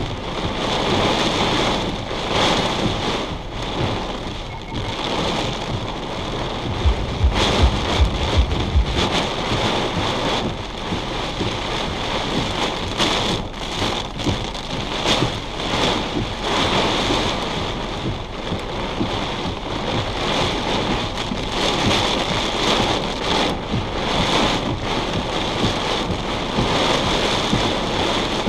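Heavy thunderstorm rain pouring on a vehicle, heard from inside it, with gusty wind making the level rise and fall. A deep low rumble comes about seven seconds in and lasts a couple of seconds.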